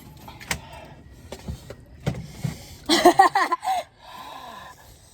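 Eating noises while having spicy noodles: a few small clicks, then about three seconds in a brief high vocal sound, followed by a hissy stretch like slurping.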